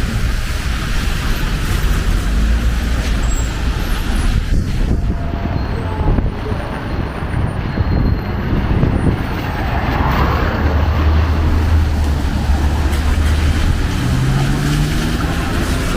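Busy street traffic in the rain: cars and buses running past on the wet road under a steady hiss, with a deeper engine hum for a few seconds in the second half.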